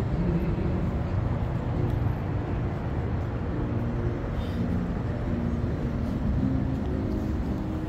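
Steady road traffic on a city avenue: a continuous low rumble of passing cars with no single event standing out.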